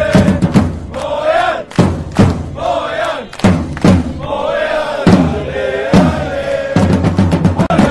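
A crowd of soccer supporters chanting in unison, one held and bending chant line over repeated drum thumps.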